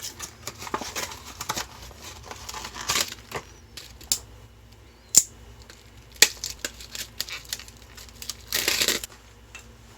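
Hands rummaging through and handling small items and packaging: irregular crinkling and rustling with scattered sharp clicks, two of them loud in the middle, and a denser burst of crinkling near the end.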